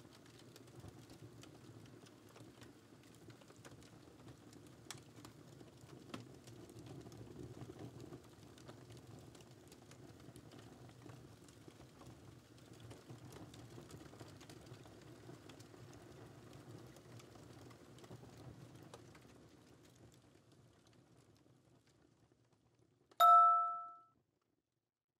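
Crackling fireplace sound with scattered clicks of keyboard typing, fading out towards the end. Then a single bell chime rings and dies away within about a second: the end-of-timer bell at the close of the countdown.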